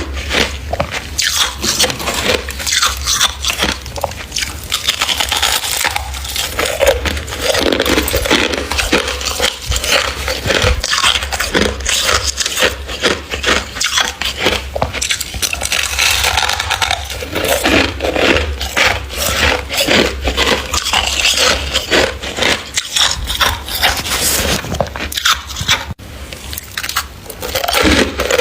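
Close, loud crunching and scraping of thick freezer frost being scraped up by hand and chewed: a dense run of crackly crunches with no let-up.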